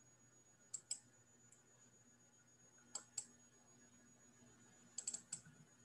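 Faint computer clicks while the screen share is being started: a pair of clicks about a second in, another pair about three seconds in, and a quick run of four or five near the end.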